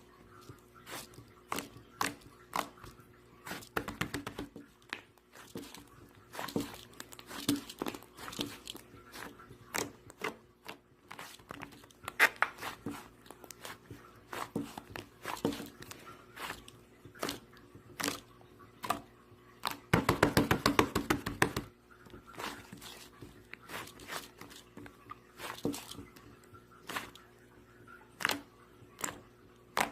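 Fluffy slime being squished and poked by hand, giving irregular sticky clicks and pops. About twenty seconds in, a run of rapid crackling pops lasts nearly two seconds.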